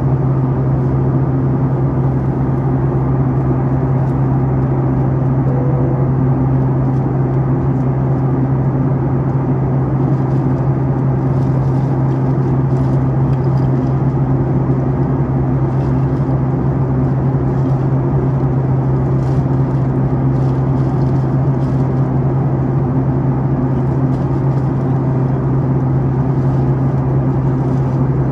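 Steady in-flight cabin noise of a Boeing 737-9 MAX, its CFM LEAP-1B turbofans giving a constant low hum under a broad rush of air.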